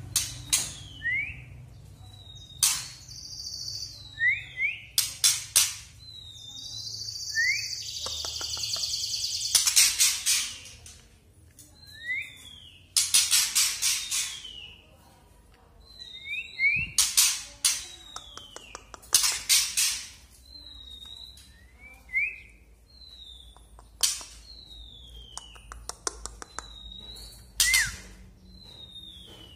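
Young male white-rumped shama giving its rattling 'kretekan' call. Each phrase is a short downslurred whistle, a quick rising note and a burst of dry clicks, repeated every two to three seconds. Once, a longer harsh rasp runs for about two seconds.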